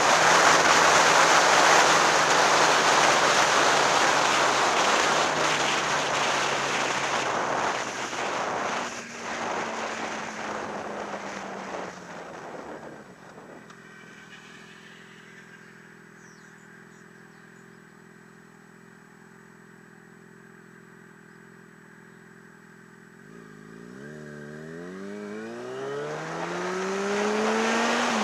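Motorcycle ridden at speed with heavy wind rush on the helmet microphone, its engine note falling as it slows to a stop. About thirteen seconds in it sits idling quietly and steadily. About twenty-three seconds in it pulls away, the engine pitch rising through the gears as the wind noise builds again.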